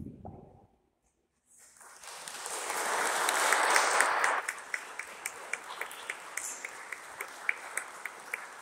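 A short low sound, then after about a second's pause an audience applauding: the clapping swells to a full burst and then thins to a few people clapping steadily.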